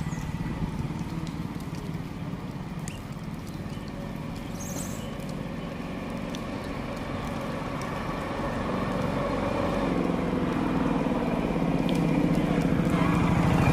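Motorcycle engine running steadily, getting louder over the last few seconds.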